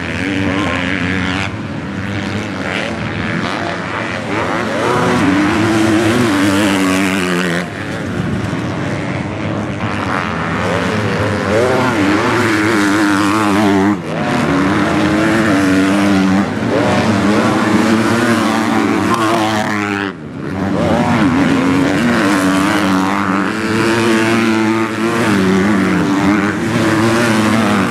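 MX2 motocross bikes' engines revving hard on the track, the pitch climbing and dropping again and again as the riders accelerate and back off, with a brief dip in the sound about 20 seconds in.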